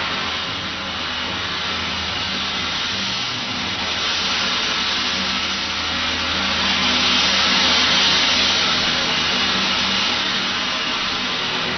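Large gong played continuously with a soft mallet, its shimmering wash building and swelling loudest about seven or eight seconds in, with no separate strikes standing out. A low steady drone sits beneath it.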